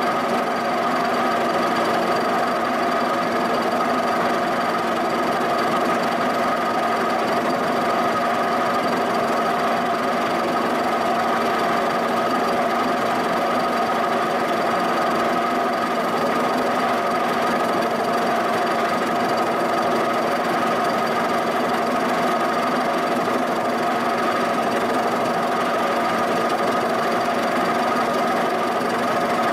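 Giddings & Lewis horizontal mill taking a milling cut across the bottom of a cast-iron shaper body: a steady machine drone with a constant knocking from the interrupted cut of the cutter.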